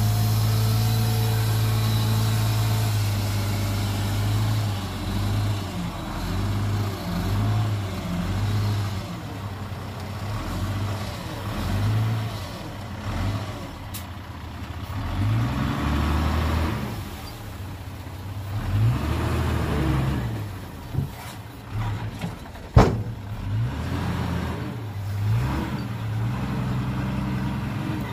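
Heavy diesel engines of dump trucks and a bulldozer at work. They run at a steady pitch at first, then rise and fall as they are revved, with a single sharp knock near the end.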